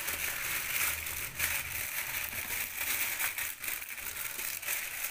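Clear plastic sheet crinkling and rustling as hands press and smooth soft dough flat beneath it in a metal tray, with many small irregular crackles.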